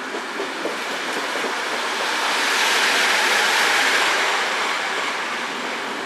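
Express passenger train entering the station and passing close by. A few wheel clacks over rail joints come in the first second, then rushing wheel and body noise swells to its loudest about halfway through and eases off.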